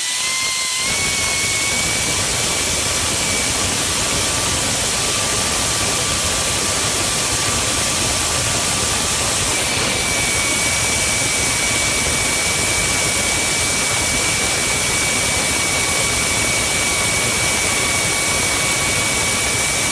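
Air ratchet running continuously, a steady hiss with a whine that steps up slightly in pitch about a second in. It is turning a long rusted 13 mm water pump bolt that spins in place without backing out, so the bolt is being pried out as it turns.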